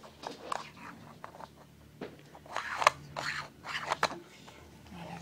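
Hard plastic lids knocking and sliding on a wooden dog puzzle board as they are moved by hand: a few separate clacks and scrapes, loudest about three seconds in.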